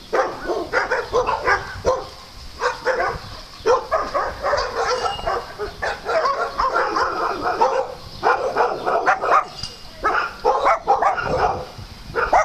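Dogs barking and yapping in quick, almost continuous runs of calls, with a few short breaks.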